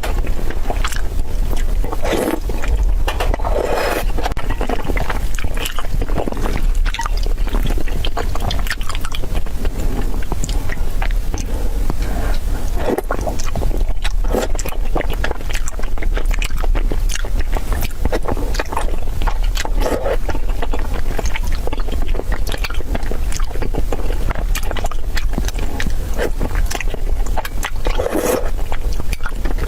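Close-miked eating: chewing with many short clicks and crackles and occasional wet smacks, over a steady low hum.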